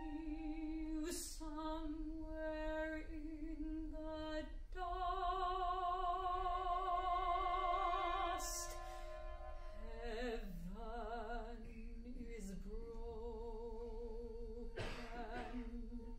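A soprano singing long held notes with wide vibrato, loudest in a high phrase a few seconds in. Steady, pure sustained tones from wine glasses run beneath the voice.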